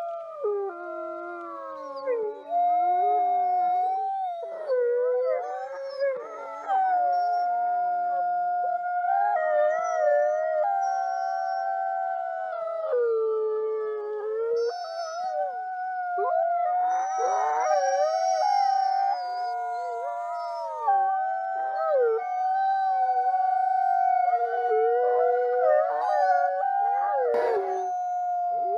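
Several wolves howling together in chorus, overlapping voices holding long notes and sliding up and down in pitch. A short click comes near the end.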